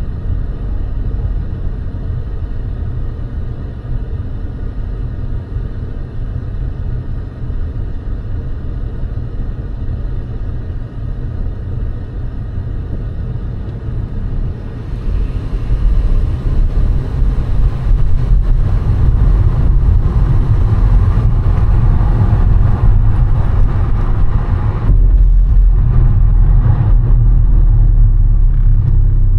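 A car driving, with steady engine and road rumble that grows louder about halfway through.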